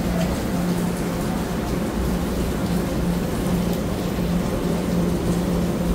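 Taiwan Railway EMU900 electric multiple unit standing at the platform, its rooftop air-conditioning and auxiliary equipment running with a steady hum.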